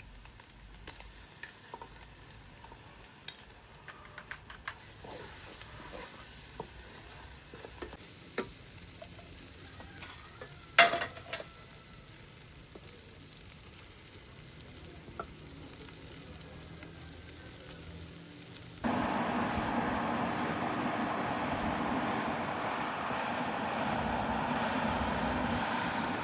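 Scattered light clicks and knocks, with one loud sharp clank about eleven seconds in. Near the end it changes abruptly to a much louder, steady rushing noise.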